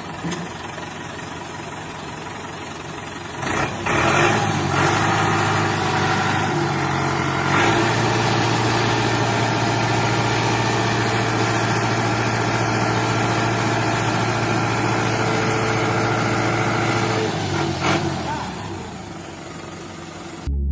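A steady engine hum that grows louder about four seconds in and again about eight seconds in, then fades near the end.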